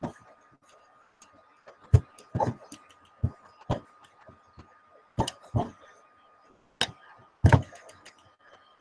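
Irregular sharp clicks and knocks, about eight of them, some with a duller low thump, over a faint steady high tone.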